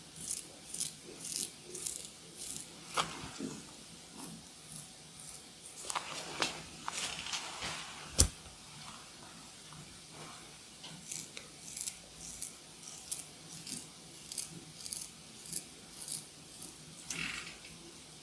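Razor shaving hair: short, crisp scraping strokes, about one or two a second, with a single sharp click about eight seconds in.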